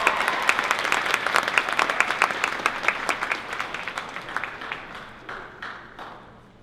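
Audience applauding, with many single claps standing out; the clapping thins and dies away over the last two seconds or so.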